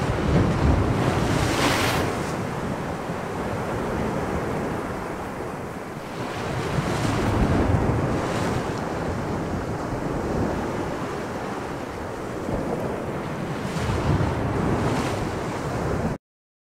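Added sound effect of ocean waves and wind: a steady rushing noise that swells and eases every few seconds, cutting off abruptly just before the end.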